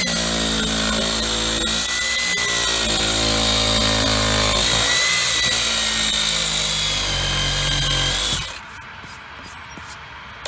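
Electric detail sander running steadily with a whining motor as it sands hardened epoxy wood filler on a wooden window sill. It stops about eight and a half seconds in, leaving a few faint clicks.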